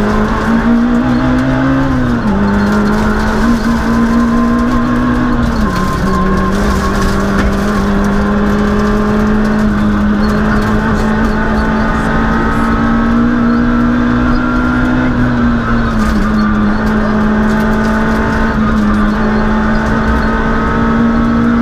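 Citroën Saxo Group A6 rally car's 1.6-litre four-cylinder engine, heard from inside the cabin, pulling hard. Its pitch climbs steadily and falls back sharply at upshifts about two and six seconds in, then climbs through one long pull before dropping again about sixteen seconds in and once more near the end.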